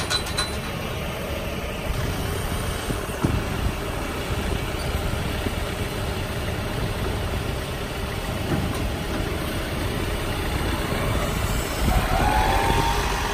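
An engine idling steadily, with a short rising whine near the end.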